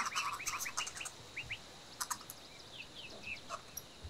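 Small birds chirping: a quick flurry of short chirps in the first second, then scattered calls, over a faint steady high-pitched tone.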